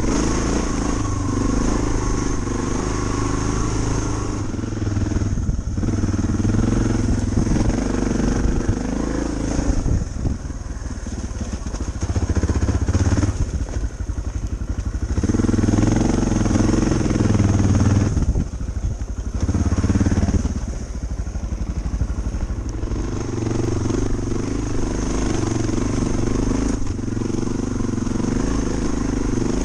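Off-road motorcycle engines on rough dirt trails, heard from the rider's position, revving up and easing off over and over as the throttle is worked, with brief drops in engine sound between bursts.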